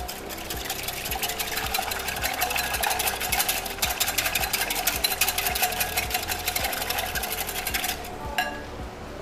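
Wire whisk beating a thin egg-and-milk batter in a glass bowl: a fast, steady clatter of wire against glass that stops near the end.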